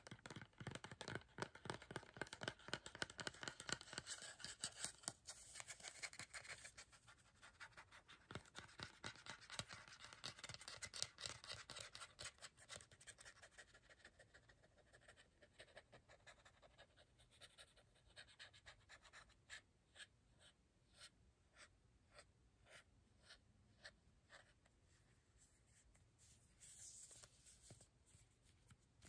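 Quiet fingernail tapping and scratching on a plastic hair-product bottle and its flip cap: rapid, dense tapping for about the first half, then slower separate taps, one or two a second. A short rubbing sound comes near the end.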